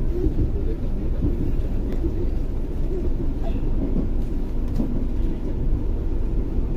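Steady low rumble of a train in motion, with a few faint clicks.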